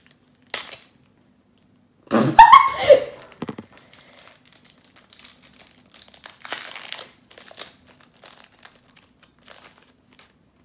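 Thin plastic wrapping crinkling and tearing in the hands as a small card packet is pulled open, in scattered soft rustles, with a louder burst about two seconds in.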